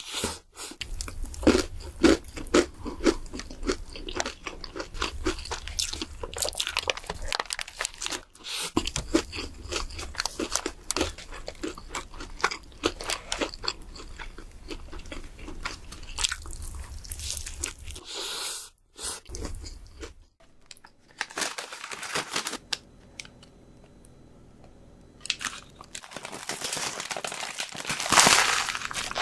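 Close-miked crunching and chewing of crispy fried chicken: rapid crackling bites into the fried coating, followed by chewing. The runs of crunching break off briefly a few times, and the last third is quieter.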